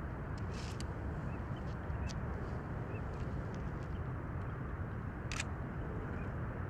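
Wetland birds giving several short, high calls, the longest about five seconds in, over a steady low background rumble.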